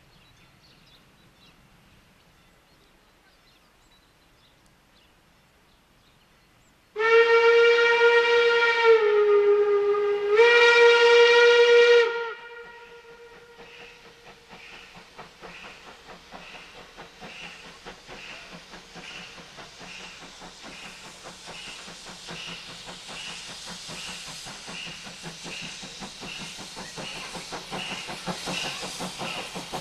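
Steam locomotive whistle blown about seven seconds in, one long blast of about five seconds whose pitch dips briefly in the middle. Then the slow, even exhaust beats and steam hiss of the double-headed class 50 and class 52 steam locomotives working their train, growing louder as they approach.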